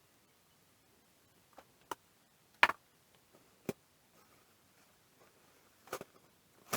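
Half a dozen short, sharp taps and clicks of small tools being handled on an electronics repair bench, the loudest about two and a half seconds in, against a quiet background.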